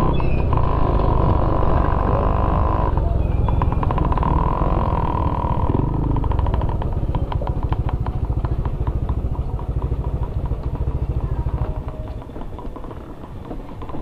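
Yamaha Aerox scooter's single-cylinder engine running on the move, with a low rumble and a steady whine. About six seconds in it slows and its separate firing pulses come through. The engine drops quieter near idle about twelve seconds in.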